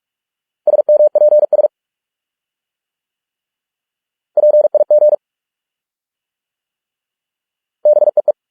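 Morse code sent at 45 words per minute as a single-pitch beep, keyed in quick dots and dashes: three short words, each a second or less, with a silent gap of about two and a half to three seconds between them.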